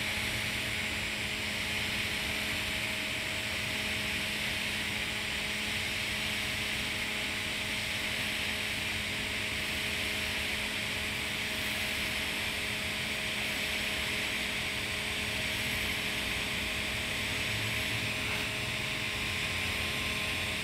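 TIG welding arc at 130 amps on carbon steel pipe during the hot pass: a steady, even hiss with a faint steady hum beneath it.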